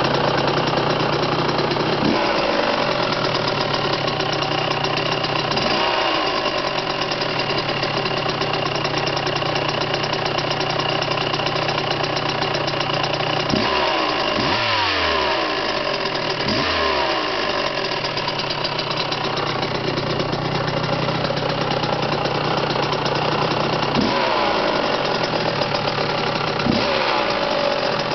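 Kawasaki KX125 two-stroke single-cylinder engine idling, blipped a few times: each blip revs briefly and falls back to idle, with a quick run of several blips in the middle. The owner hears a weird sound in it that he cannot identify.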